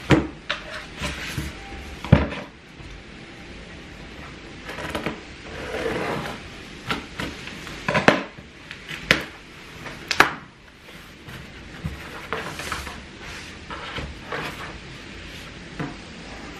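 A cardboard mailer box being unboxed on a table: sharp knocks as it is set down and handled, scissors cutting the packing tape, and the cardboard flaps scraping and rustling as they are pulled open.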